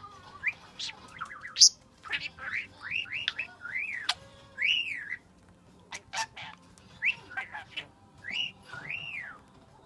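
Pet budgerigar and cockatiels chirping and whistling: a run of short arched whistles, rising then falling, mixed with sharp high chirps and clicks, with a brief pause about halfway through.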